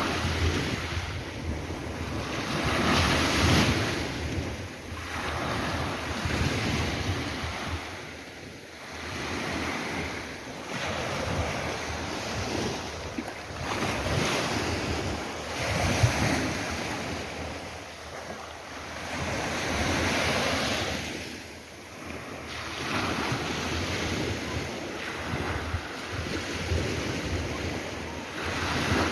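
Sea waves breaking and washing up the shore, swelling and fading every few seconds, with wind buffeting the microphone.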